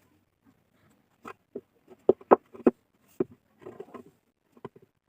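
A series of irregular sharp knocks and taps, about eight over a few seconds, loudest in a quick cluster of three about two seconds in, with some rustling near four seconds.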